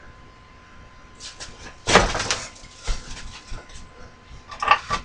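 Objects knocking and clattering as things are moved about while searching a workbench. The loudest clatter comes about two seconds in, with smaller knocks after it and another short burst near the end.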